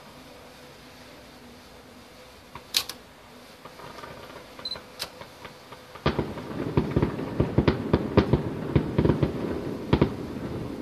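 Distant fireworks: a couple of isolated bangs, then from about six seconds in a dense, rapid crackle of many sharp reports for around four seconds.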